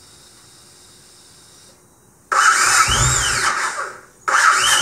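Rebuilt electric starter on a Yamaha Road Star Warrior 1700, its magnets reglued with JB Weld, cranking the V-twin engine in two attempts: the first starts about two seconds in and lasts under two seconds, the second begins just before the end. Each press brings a high-pitched whine that rises and then falls, which sounds strange to the owner even though the starter works.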